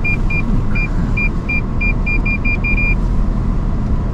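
A vehicle's electronic warning beeps, short and high-pitched, come quickly at uneven intervals and stop about three seconds in. They sound like parking or proximity sensors reacting to brush close to the vehicle on a narrow trail. Underneath is a steady low rumble of the vehicle creeping along, heard from inside the cab.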